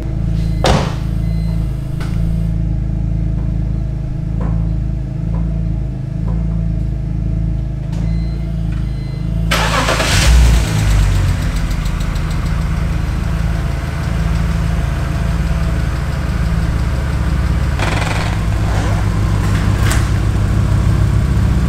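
BMW E46 engine starting about halfway through, catching with a loud burst and settling into a steady idle: its first start in months after a wreck rebuild. A steady low hum runs before the start.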